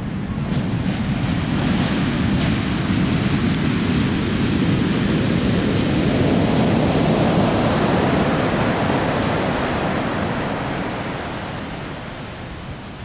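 Atlantic surf breaking and washing up a sandy beach: a continuous rush of water that swells toward the middle and dies down near the end.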